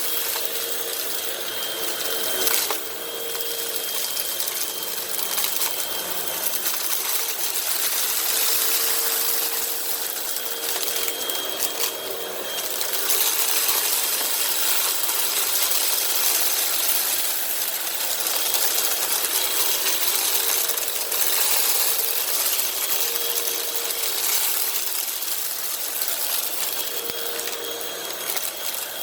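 Hoover WindTunnel upright vacuum running steadily, its motor whining, while sucked-up dirt and sand rattle and crackle through it.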